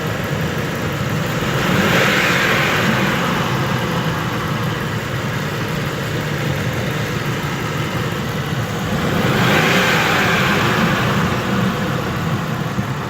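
2002 Ford F-150's 4.6 V8 engine running, revved twice. Each time a rushing hiss swells for about two seconds, about two seconds in and again near the nine-second mark. This is the strange intake noise the truck makes as the engine decelerates off the throttle.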